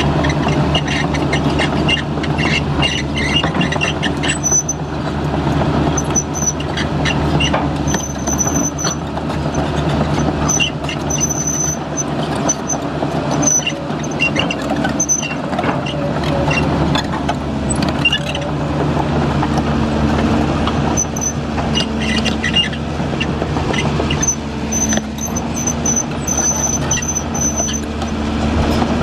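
Heavy construction machine engine running steadily under short, high-pitched squeals that come and go in clusters.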